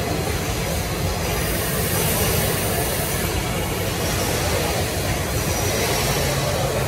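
Woodmaster 5-axis CNC router running steadily through an automatic tool change, with its carousel tool magazine under the spindle. A high hiss lasts about two seconds, starting about a second and a half in.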